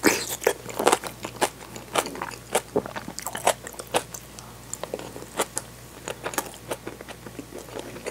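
Close-miked chewing of a mouthful of kimchi-topped tofu and rice: a run of crisp, wet crunches and mouth clicks, densest in the first second or so and then coming irregularly.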